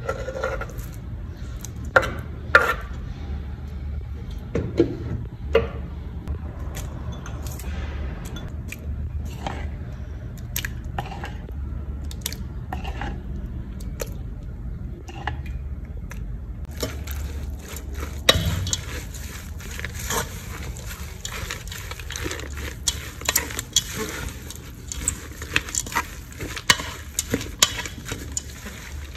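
Wooden spoon knocking and scraping against a stainless steel bowl while salad ingredients are added and tossed: scattered clinks at first, then from a little past halfway a busy, continuous clatter and rustle of leaves, sliced pork and peanuts being mixed. A steady low hum runs underneath.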